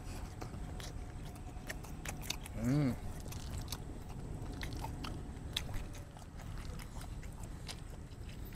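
Close-up chewing of black-bean-sauce noodles and sausage, with many small wet mouth clicks and smacks. About three seconds in, a short hummed "mmm" rises and falls in pitch.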